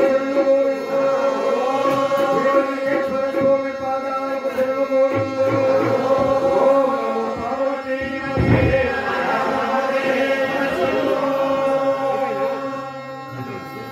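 A group of men singing a devotional bhajan together to a harmonium holding steady notes and tabla drum strokes, fading near the end.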